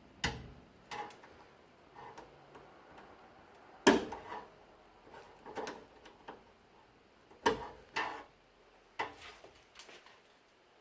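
Scattered sharp clicks and knocks of hand tools and the chrome lock strip being handled while the strip is fitted into a rubber window gasket. The loudest knocks come about 4 s and 7.5 s in.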